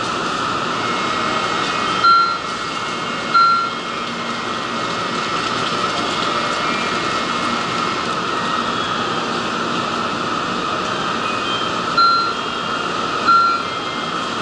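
Steady hum of a Shinkansen platform with a train standing at it. Two short electronic beeps about a second apart come about two seconds in, and another such pair near the end.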